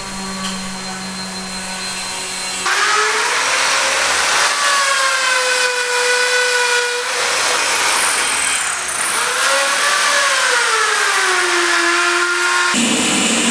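Electric power tools on a building site: a steady motor hum, then an abrupt change about three seconds in to a louder tool whose motor pitch sags and recovers as it works under varying load.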